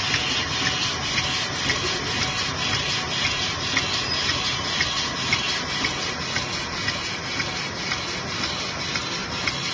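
Automatic capsule filling machine running, a steady mechanical clatter with an even rhythm of about two strokes a second.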